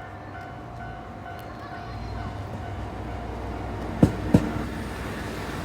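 ET122 diesel railcar rolling along the track, its low rumble growing louder, with a double clack about four seconds in as a bogie's two axles cross a rail joint.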